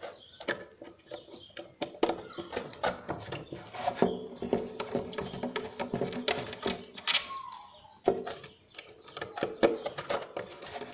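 Tamper-proof Torx screws being worked out of a Ford mass airflow sensor housing with a Torx bit driver: a run of small, irregular clicks and scrapes of metal on metal and plastic. A short squeak rises and falls about seven seconds in.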